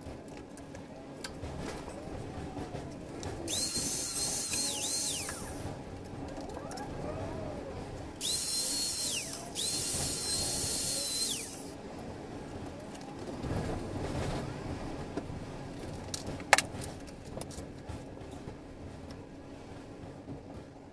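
Cordless drill-driver running in three short bursts of a second or two, driving screws into the door's metal frame profiles; each high whine drops away as the trigger is released. A single sharp click about sixteen seconds in.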